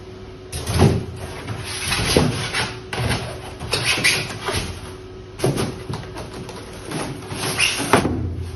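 Repeated rustling, scraping and knocking of objects being handled, in irregular short bursts about one every half second to second, over a faint steady hum.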